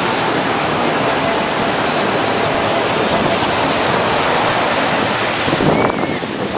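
Ocean surf breaking on a beach: a steady, continuous wash of waves.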